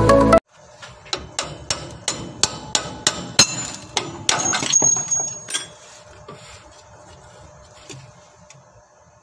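Sharp metal-on-metal knocks, about three a second for some five seconds, then quieter clinks and handling. This is tapping at a truck's double brake chamber and its mounting bracket while the chamber is worked off.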